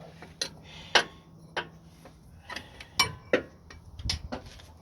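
Metal tools clicking and clanking against metal as a pry bar is repositioned on the car's underside: a series of irregular sharp taps, the loudest about a second in and about three seconds in, with a dull thud near the end.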